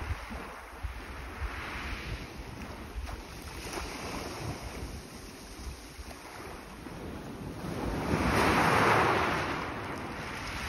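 Small sea waves breaking and washing onto a pebble beach, with wind buffeting the microphone; a louder wave surges in about eight seconds in.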